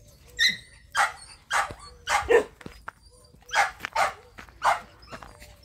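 Dog barking, about eight short, sharp barks in uneven groups of two or three.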